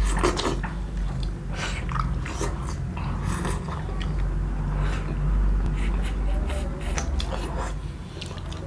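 Close mouth sounds of people eating chicken momo without using their hands: irregular biting and chewing with wet smacks, over a steady low hum.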